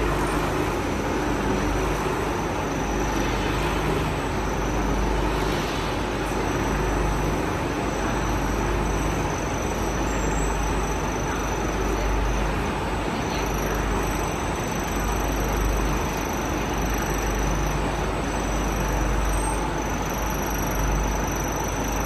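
Steady machinery noise from a running continuous carbonization furnace line: an even rumble with a faint constant high whine over it.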